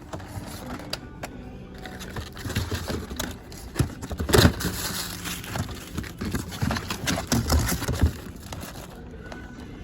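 Boxed and carded merchandise being handled: irregular rustling and crinkling with scattered knocks and clicks, busiest through the middle.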